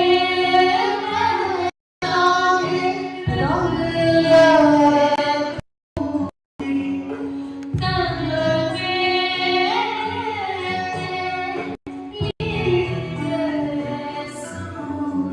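A woman singing a slow, bending melody over a steady held drone. The sound cuts out abruptly to silence for a moment several times.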